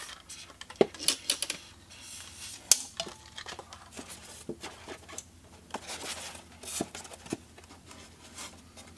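Irregular metallic clicks, knocks and clinks as a Voice of Music 1201 record changer is turned over and its metal parts are handled, the sharpest knocks about a second in and near three seconds.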